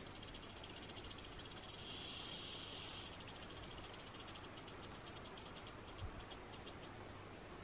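Rattlesnake rattling its tail, a defensive warning buzz. A few seconds in, the continuous buzz breaks up into separate rapid clicks that slow and stop near the end.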